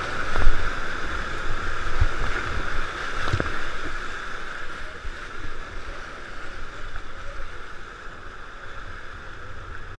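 Whitewater rapids rushing steadily around a kayak, heard close up from a camera mounted on the boat's bow. A few low thumps of water striking the boat come in the first few seconds.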